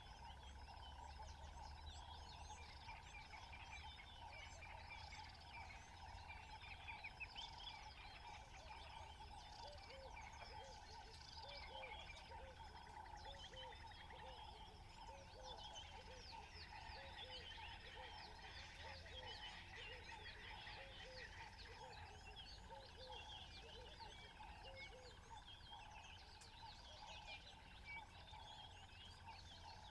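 Faint savannah ambience: many birds chirping throughout over a steady high hum. From about ten seconds in to about twenty-five, a run of short, lower repeated calls joins them.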